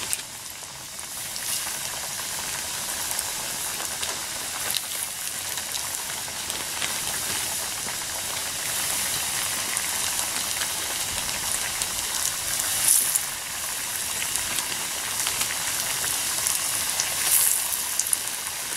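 Steelhead trout pieces deep-frying in hot oil in a skillet: a steady sizzle and bubbling, with scattered small pops and a couple of louder spits.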